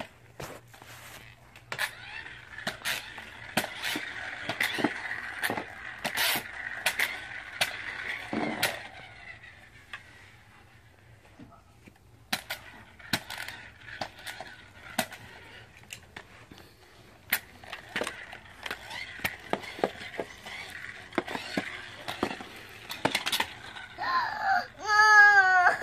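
Plastic toy monster trucks with friction motors being handled and pushed across carpet: scattered clicks and knocks of plastic parts, with stretches of whirring as the friction-driven wheels spin. Near the end a child's voice whines.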